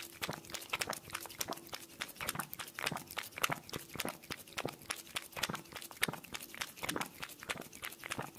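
A cat lapping water from the rim of a fountain basin: a quick, irregular run of small clicks, several a second.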